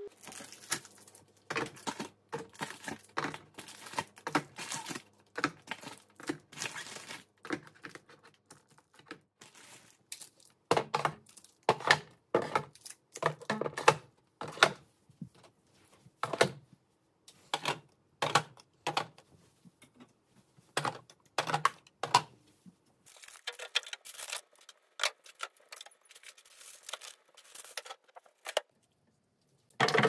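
Glass bottles, jars and plastic containers clinking and knocking as they are set onto refrigerator door shelves and into clear plastic organizer bins: a quick irregular run of light taps and clunks, with a faint low hum underneath for most of it.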